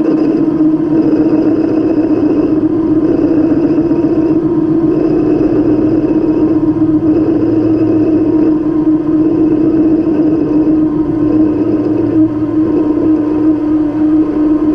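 Chinese mini lathe running with a loud, steady whine from its motor and drive.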